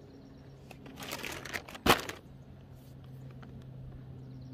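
Crinkling and rustling, then one sharp knock a little before two seconds in, over a faint steady low hum.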